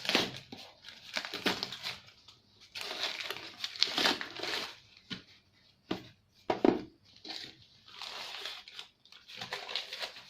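Product packaging being handled and torn open by hand: irregular bursts of tearing and crinkling, with a couple of sharper knocks about six to seven seconds in.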